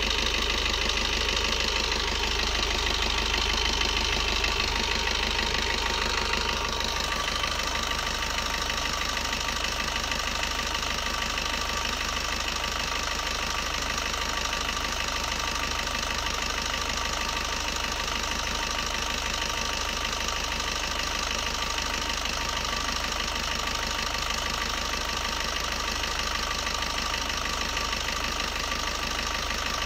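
Maruti Suzuki Baleno's 1.3-litre diesel engine idling steadily while a carbon-cleaning solution is fed into its intake from a syringe.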